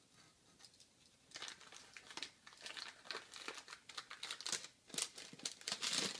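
Packing wrap crinkling and crumpling as it is pulled off a drink can being unpacked, in irregular rustling bursts that start about a second in and are loudest near the end.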